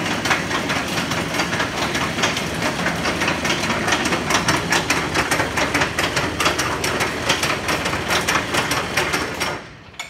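The D-10T digger's 42-inch chain running on tractor hydraulics: a fast, dense metallic clatter over the steady run of the tractor engine. It cuts off about nine and a half seconds in as the machine is shut down.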